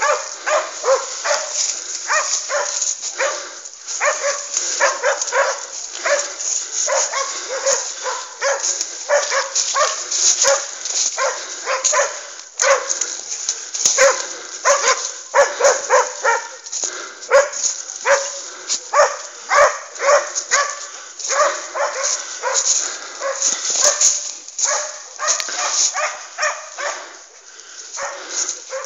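A pack of scent hounds baying on wild boar, many short barks overlapping in a rapid, unbroken chorus.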